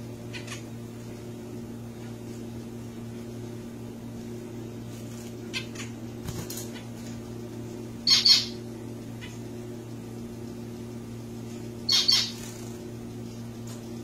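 Zebra finches giving short calls now and then: a few faint ones, then two louder ones about eight and twelve seconds in. A steady low hum runs underneath.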